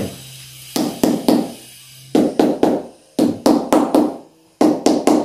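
Hammer tapping bricks down to seat them in the first course, in quick clusters of three to five sharp, ringing knocks.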